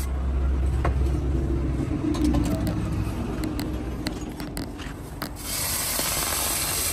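Hot steel cleaver blade, cut from a tractor disc plough, lowered into a water trough and hissing as it is quenched, from about five and a half seconds in. Before that come a low hum and a few sharp clicks as the blade is handled with tongs.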